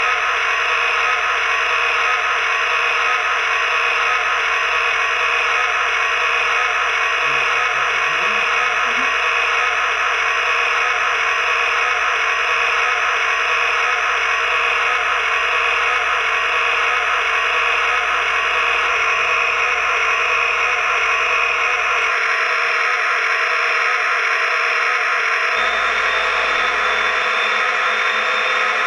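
Sound system of a Lionel LionChief Plus E33 O gauge electric locomotive playing its RailSounds electric-engine sound, a steady unbroken hum and whir that holds the same level throughout.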